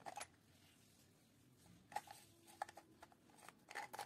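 Near silence broken by a few light clicks and taps, about two seconds in and again near the end, as small plastic and metal parts of a toy coin bank are handled.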